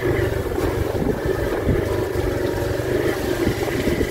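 Motorcycle engine running steadily at riding speed.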